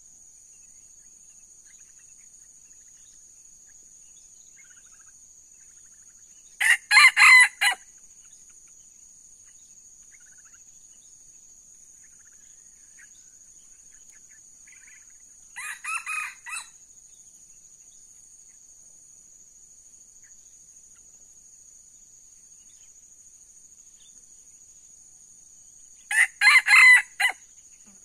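Red junglefowl roosters crowing three times, about ten seconds apart: two loud, short, choppy crows about a quarter of the way in and near the end, and a fainter one between them. A steady high-pitched insect drone runs underneath.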